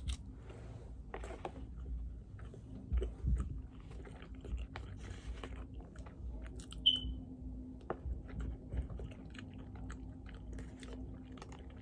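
Close-up mouth sounds of a person chewing a mouthful of rice and fish, small wet clicks and smacks. A brief high ping sounds once just past halfway.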